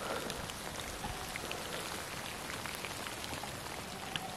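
Rain falling steadily: an even hiss with scattered individual drips and drops ticking throughout.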